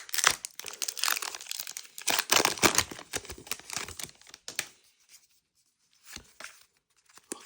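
Foil wrapper of a Pokémon booster pack being torn open and crinkled, a dense crackling for about four and a half seconds, then a few faint rustles.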